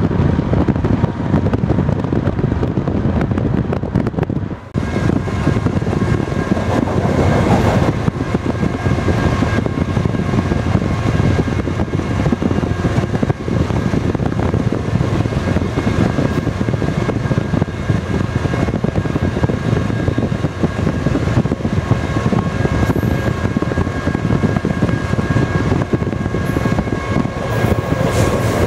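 BNSF freight train's diesel locomotives running alongside a moving car, heard over the car's road and wind noise as a steady, dense rumble. From about five seconds in, after a brief drop in level, a steady high whine runs over it.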